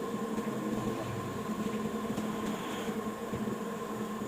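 A steady mechanical hum holding a constant pitch, like a running motor or fan.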